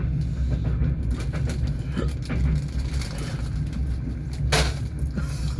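Passenger train running on the rails: a steady low rumble with sharp clacks of the wheels over the rail joints, the loudest about four and a half seconds in.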